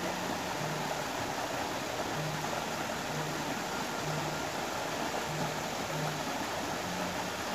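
Steady rush of water from a small stream pouring over rocks.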